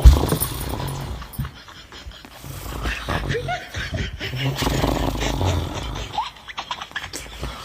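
A man's deliberately faked snoring: loud, deep, rasping snores repeating every couple of seconds.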